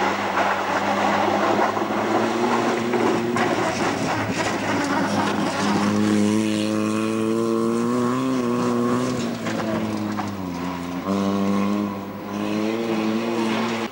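Rally car engines at high revs as cars pass at speed on a gravel stage. A loud rushing noise comes first, then an engine note rising and falling with the revs, dipping briefly at a gear change near the end. The sound cuts off suddenly.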